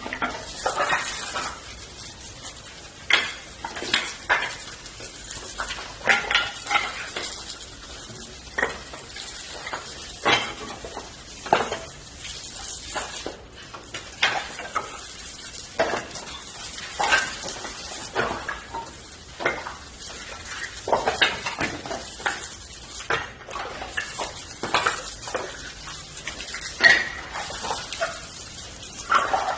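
Burning firewood crackling and popping irregularly, several sharp pops every few seconds, over a steady hiss.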